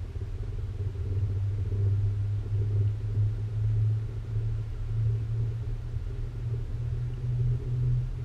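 Low, steady rumble inside a cable-car cabin as it rides along its cables, a deep hum that swells and eases.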